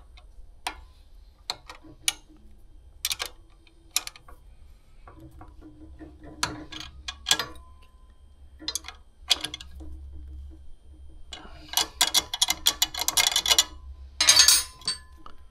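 Wrench ratcheting as the nut on a rivet-press jig is tightened down: scattered single clicks at first, then a fast run of clicks about twelve seconds in and a louder burst of metal clatter near the end.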